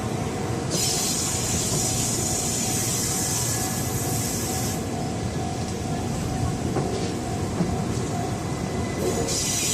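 Doctor Yellow Shinkansen inspection train running, a steady rumble with a faint steady tone. A high hiss sets in about a second in, lasts about four seconds, and comes back near the end.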